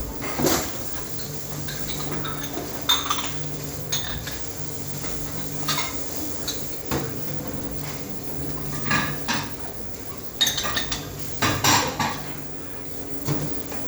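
Dishes and cutlery clattering as they are handled: irregular clinks and knocks over a steady low hum.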